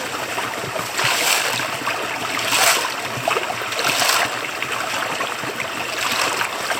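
Creek water running steadily, with several louder splashing swells.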